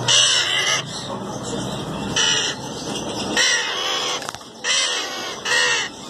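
Alexandrine parakeets calling: five loud, short screeches in a row, the first the longest.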